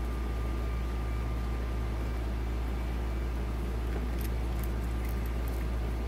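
A steady low hum, likely from a room fan or appliance, runs at an even level. Over it come a few faint small metallic clicks in the second half, from the small brass lock's parts being handled as it is taken apart.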